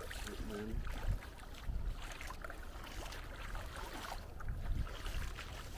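Bare feet wading through ankle-deep seawater over a muddy tidal flat: a run of irregular splashing, sloshing steps.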